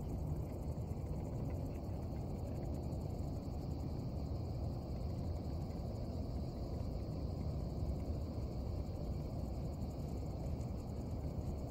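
Steady low rumble of wind on the microphone, with a faint, steady chirring of insects above it.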